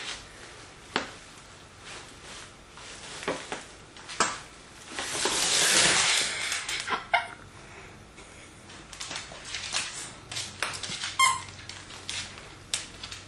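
A dog rummaging with its head in a paper gift bag: the paper crinkles and rustles in short bursts, with a louder, longer crinkling rush about five to six and a half seconds in as a toy is pulled out and the bag drags across the hardwood floor. A short squeak comes near the end.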